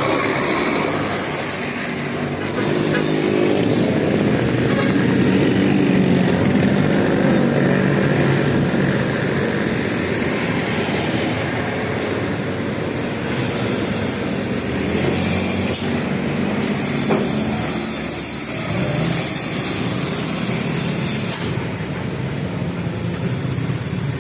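A road vehicle's engine running amid steady roadside traffic noise, with a thin high whine above it.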